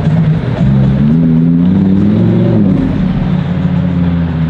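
Ferrari LaFerrari's V12 engine revving: its pitch climbs for about a second and a half, drops away about two and a half seconds in, then holds steady.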